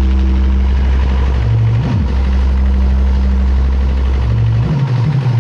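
Very loud, steady deep bass tones from a stacked DJ box speaker system, with a brief downward slide about two seconds in; near the end the bass changes to a throbbing pattern.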